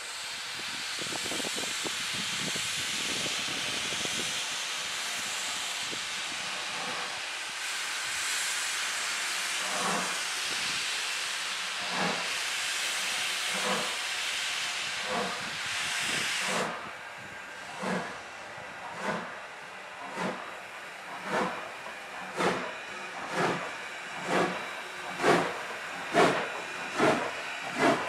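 Two steam locomotives, Strasburg Rail Road's 4-8-0 No. 475 and 2-10-0 No. 90, starting a train. First comes a steady loud hiss of steam blowing from the open cylinder cocks, which cuts off suddenly about two thirds of the way in. Then the exhaust chuffs come through, about one a second and slowly quickening as the train gathers speed.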